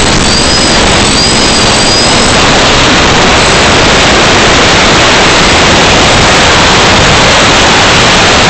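Loud, steady rushing noise of an FPV drone in flight: propeller and wind noise on the onboard microphone, with no clear motor whine.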